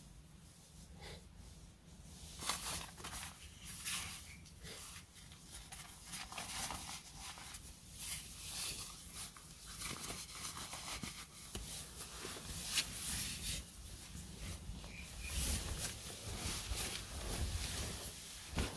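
Irregular rustling and shuffling of a blanket or sleeping bag and tent fabric as someone moves about and lies down in a small tent, with scattered soft clicks.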